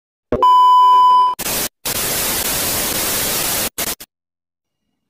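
Television test-card sound effect: a click, then a steady high beep for about a second, followed by TV static hiss that runs for about two seconds and breaks off with a couple of short crackles.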